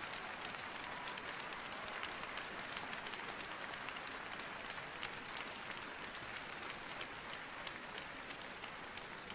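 Arena audience applauding: dense clapping from a large crowd, easing slightly near the end.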